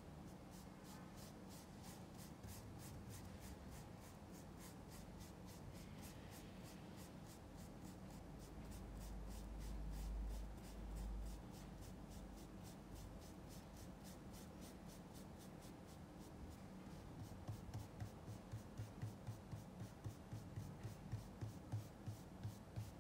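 Paintbrush working oil paint on canvas: faint, quick, steady scrubbing strokes. A brief low rumble comes about ten seconds in, and in the last few seconds the strokes become soft rhythmic dabs, about two to three a second.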